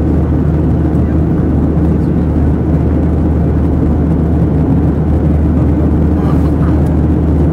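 Steady roar of a Boeing 737-700's CFM56-7B jet engines and rushing air, heard inside the cabin during the climb after takeoff.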